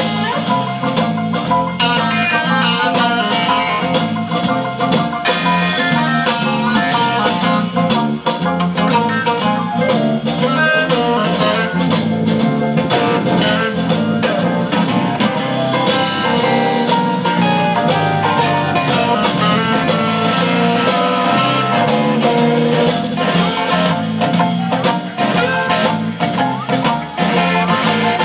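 Live band playing an instrumental passage with no singing: electric guitars, keyboard and drum kit keeping a steady beat.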